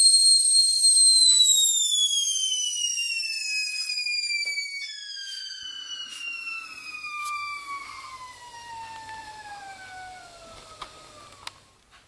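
Stainless-steel stovetop whistling kettle: a high steady whistle that, about a second in, begins gliding steadily down in pitch and fading as the steam flow dies away. There are a couple of small clicks near the end.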